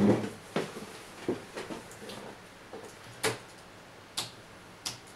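Computer keyboard keys being pressed: about half a dozen short, separate clicks at irregular intervals, as the keys step through a boot menu.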